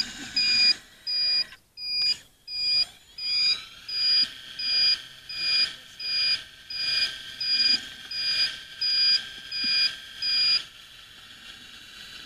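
Electronic warning beeper of a radio-controlled Bell B35D articulated dump truck model, beeping about one and a half times a second as the truck reverses and tips its bed, and stopping shortly before the end. A fainter whine runs beneath the beeps.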